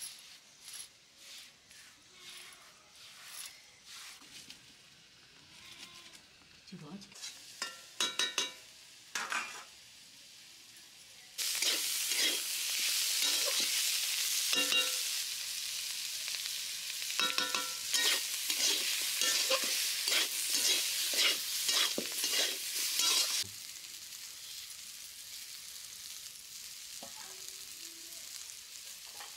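Bitter gourd and potato slices frying in oil in a steel kadhai: a loud sizzle starts suddenly about a third of the way in, with a metal spatula scraping and knocking against the pan as it is stirred, then drops abruptly to a quieter sizzle near the end. Before the frying, soft scraping and a few metallic clinks of a steel plate.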